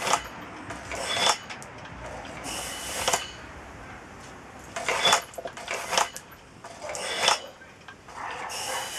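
Short hisses of compressed air from a push-button air blower nozzle, about seven at uneven intervals of roughly a second, some with a faint whistle. Each blast fires as a ramp on the spinning wheel trips the trigger, driving a homemade air-powered flywheel generator.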